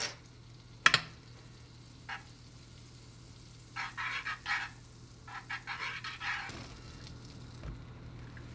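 Butter sizzling in a nonstick frying pan as metal chopsticks push it around, in two bursts of scraping and sizzling about four and six seconds in. Two sharp clacks against the pan near the start.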